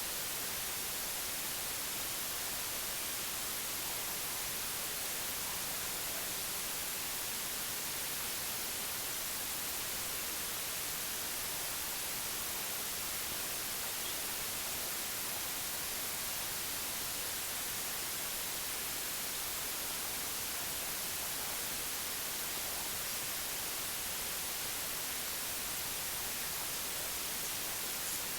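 Steady white noise: an even, unbroken hiss, strongest in the high frequencies.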